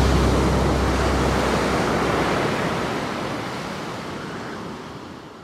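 A steady rushing wash of surf-like noise closing out a music track, fading out gradually toward silence.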